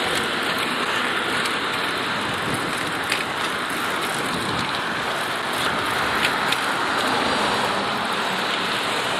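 Steady hissing road noise of a bicycle ride along a busy street: tyres on pavement and passing traffic, picked up by the rider's earpiece microphone, with a few faint clicks.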